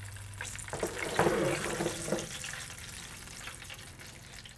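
Breaded chicken pieces frying in a skillet of hot oil, a steady sizzle. About a second in, as a piece is lifted out of the oil with metal tongs, there is a louder stretch of sizzling and clatter, which settles by about two seconds in.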